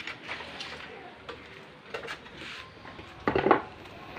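Metal tools and parts clinking and knocking as they are handled, with a louder clatter a little past three seconds in.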